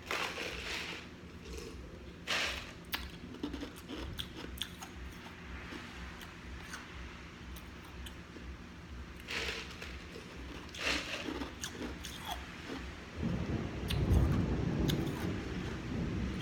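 Close-miked chewing and crunching of food in short bursts. About three-quarters of the way through a low rumble of thunder swells in and becomes the loudest sound.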